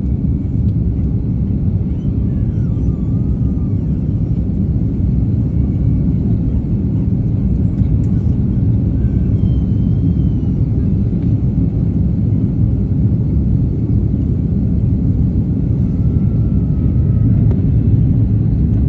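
Steady low rumble of a jet airliner's engines during takeoff, growing slightly louder near the end.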